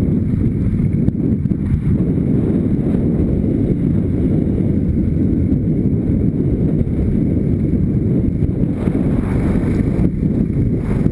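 Motorcycle riding a rough gravel track: a steady low, dull rumble of engine and tyres, mixed with wind buffeting the microphone.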